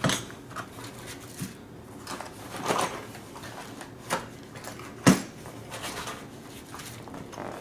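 Hands rummaging in a packed cardboard box: rustling with scattered sharp clicks and knocks of hard objects, the loudest about five seconds in.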